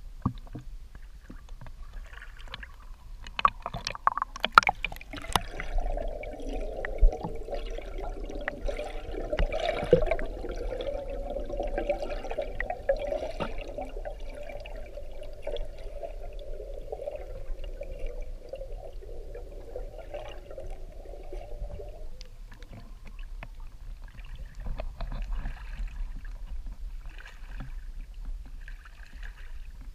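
River water splashing and knocking as a camera dips under the surface, then a muffled underwater rush and gurgle for about fifteen seconds that cuts off suddenly when it surfaces, leaving light water sounds.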